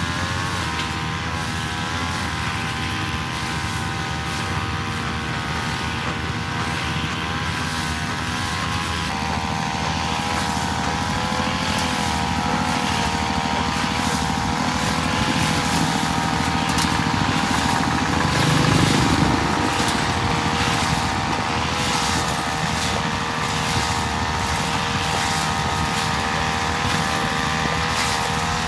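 Backpack two-stroke brush cutter running at high revs while cutting wet paddy-bund grass, its pitch wavering slightly as the blade takes the load, with a brief heavier patch a little past halfway.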